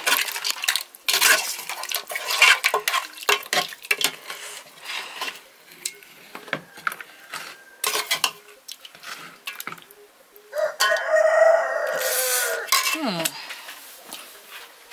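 Metal spoon scraping and clinking against an aluminium cooking pot as stew is ladled out. About ten seconds in, a rooster crows once: a long call that ends on a falling note.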